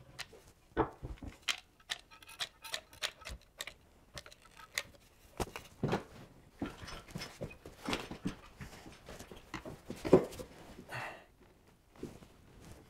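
Irregular clicks, taps and knocks of tools and wood being handled at close range, with a short scraping sound about eleven seconds in.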